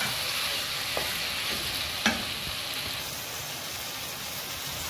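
Raw chicken pieces sizzling in oil with onions in a nonstick pan, stirred with a slotted wooden spatula. There is a steady frying hiss, with two sharp knocks of the spatula against the pan about one and two seconds in; the second knock is the louder.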